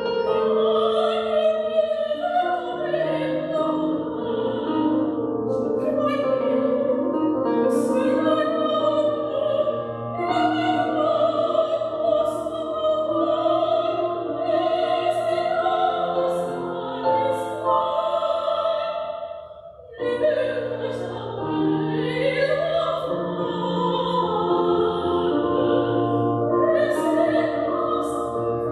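A woman singing in operatic style, with a wavering vibrato on long held notes, accompanied by an electronic keyboard. The music breaks off briefly about two-thirds of the way through, then resumes.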